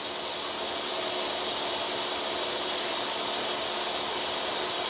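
Countertop blender running steadily, mixing a full jar of crepe batter: an even motor whir with a steady hum underneath.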